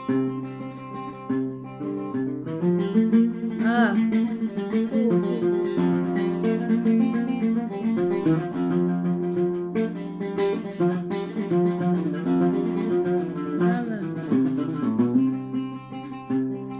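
Oud playing a solo melodic interlude, with a steady run of plucked notes.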